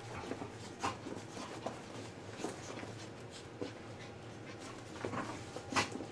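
A Boxer and a Pomeranian puppy play-fighting on carpet: irregular scuffling and scratching of paws and bodies, broken by a few short, sharp dog noises, the loudest near the end.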